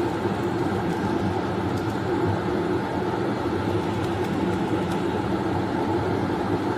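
Steady low drone of a running vehicle, even in level throughout, with a couple of faint ticks.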